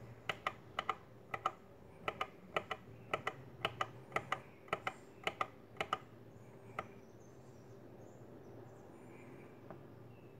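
Push button on a Durst darkroom timer being pressed repeatedly, a quick double click at each press and release, about two presses a second for six seconds as the set time steps up. One more press follows about a second later.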